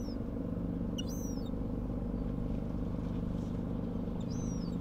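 Steady deep engine drone of a passing offshore supply ship, with a few short high bird calls over it.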